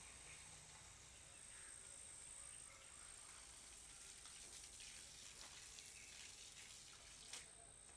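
Near silence: faint water from a garden hose trickling onto garden plants and soil, with a thin steady high whine and a small click near the end.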